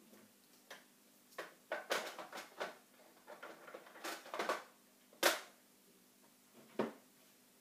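Plastic clicks and rattles from hands working on an RC truck model's tilting cab, then a sharp snap about five seconds in as the cab is pressed shut. One more knock comes near the end.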